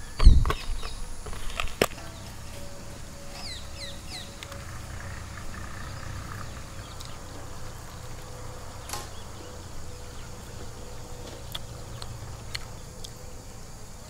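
Outdoor ambience: a steady low hum with a few short chirps about four seconds in and a handful of sharp clicks later on, after a loud thump right at the start.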